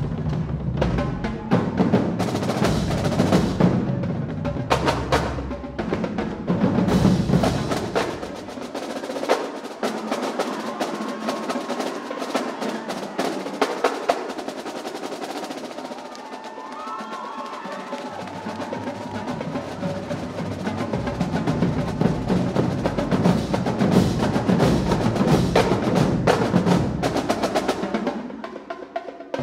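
Marching drumline playing a fast drum cadence on snare, tenor and bass drums. About eight seconds in the bass drums drop out, leaving the snares and tenors, and they come back in after about ten seconds.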